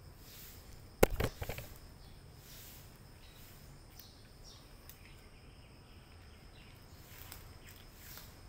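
A brief cluster of sharp knocks and clatters about a second in, then faint background hiss with a few soft ticks.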